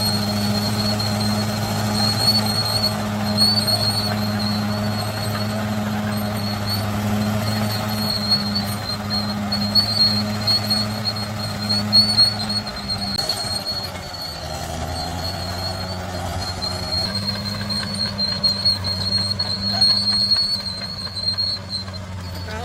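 Bulldozer's diesel engine running steadily, with a constant high-pitched whine over it. About halfway through, the engine note drops lower for a few seconds, then picks up again.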